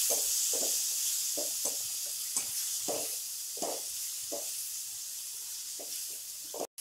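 Chopped tomatoes sizzling in oil in a metal kadai while a spatula stirs and scrapes them, a stroke roughly every half second or so over a steady frying hiss; the tomatoes are being fried until soft.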